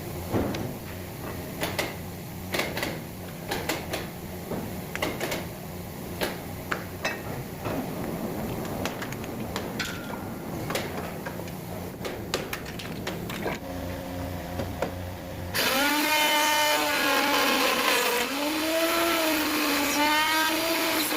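Scattered knocks and clicks of wood and tools being handled, then, about three-quarters of the way in, an electric power tool (a circular saw or router) starts cutting wood loudly, its motor pitch wavering up and down as it works.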